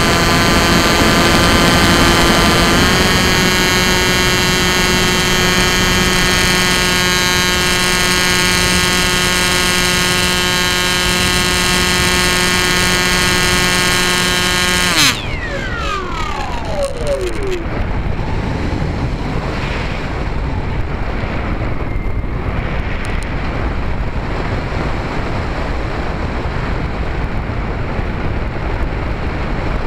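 Hobby King Bixler 2's electric motor and pusher propeller whining at a steady pitch, recorded on board the plane and stepping up slightly about three seconds in. About halfway through the throttle is cut and the whine drops steeply in pitch and fades. After that the plane glides with only wind rushing over the airframe and microphone.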